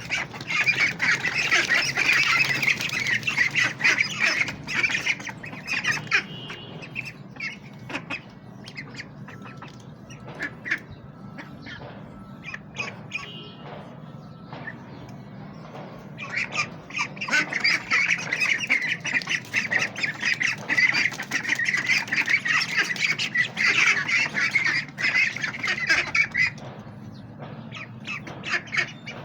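A flock of domestic ducks quacking together, many calls overlapping. The chorus is dense for the first five seconds, thins to scattered calls until about sixteen seconds in, then swells again for about ten seconds.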